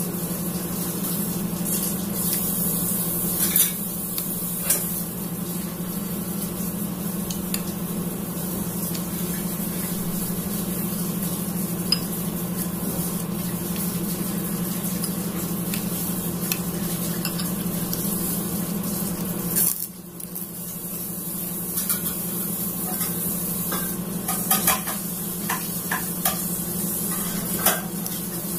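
Metal spoon stirring and scooping lontong in chicken curry sauce in a ceramic bowl, with a few sharp clinks of the spoon against the bowl, over a steady low hum and hiss.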